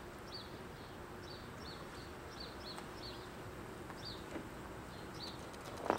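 A small bird chirping: short high notes that dip in pitch, repeated irregularly once or twice a second, over a faint steady low hum.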